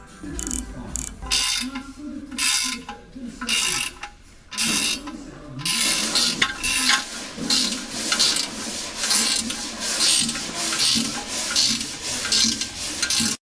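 Hand tool working on metal engine parts: a run of rhythmic scraping strokes that comes much faster about six seconds in, then stops abruptly.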